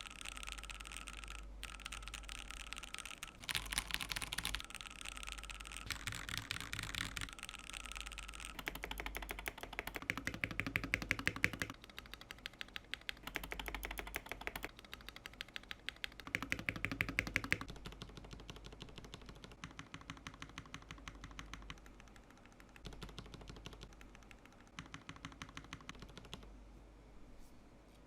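Mechanical keyboard typing: fast, continuous keystrokes, with runs of rapid evenly spaced key presses through the middle and lighter, quieter typing near the end.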